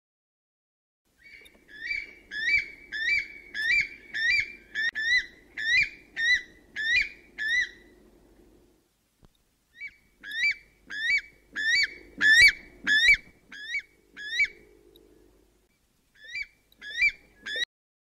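Weka calling: shrill rising calls repeated about two a second, in three bouts with short pauses between them.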